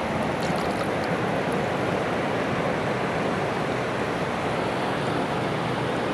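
Sea surf washing steadily over a rocky shore, a continuous even rush.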